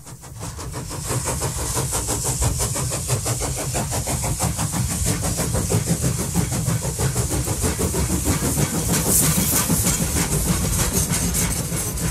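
A train in motion: a steady, fast rhythmic running noise with hiss, fading in over the first second.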